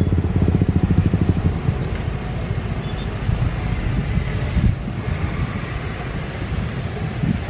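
A small motorcycle engine running close by with a fast, even pulse, fading out about a second and a half in. After that comes a steady wash of road and wind noise.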